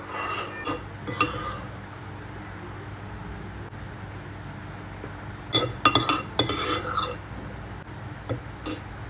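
Hard objects clinking and clattering as they are handled, in two short bunches: one in the first second or so and a busier one around the middle, over a steady low hum.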